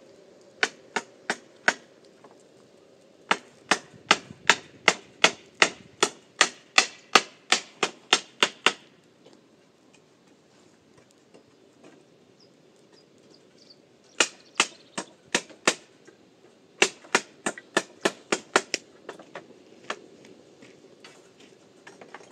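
Hammer driving nails into wooden boards, in runs of rapid, even blows about two to three a second with pauses between, fading to lighter taps near the end.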